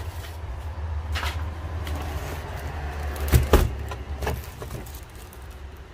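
Handling noise: a steady low rumble with a few knocks and rustles, the loudest a double thump about three and a half seconds in.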